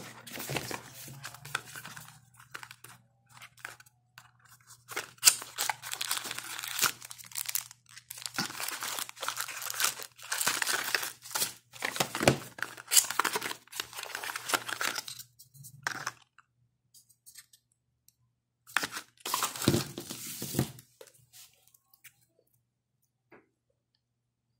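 Cardboard phone box and plastic packaging being handled, rustling and crinkling in several bursts with short pauses between them.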